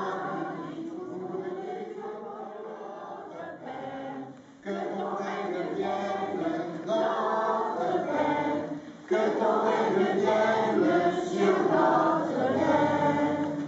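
A group of voices singing a church song together, in a chant-like style. The singing drops away briefly twice, about four and a half seconds in and again about nine seconds in.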